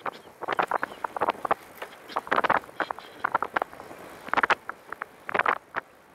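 Recumbent racing trike rolling over cracked, patched pavement: irregular rattling and knocking clicks from the frame and camera mount, some coming in short clusters.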